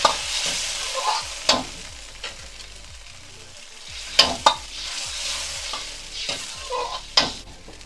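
Ladlefuls of water poured into a hot steel wok of sautéed vegetables, sizzling and hissing, while a steel ladle stirs and clanks sharply against the wok. The sizzle dies down after a couple of seconds and swells again when more water goes in about four seconds in.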